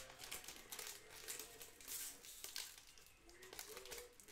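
Foil trading-card pack wrapper crinkling in the hands as it is pulled open and crumpled, a run of soft irregular crackles.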